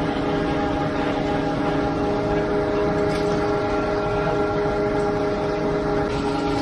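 Heavy diesel trucks running steadily as a ready-mix concrete truck discharges down its chute into a concrete pump truck's hopper: an even drone with several held tones.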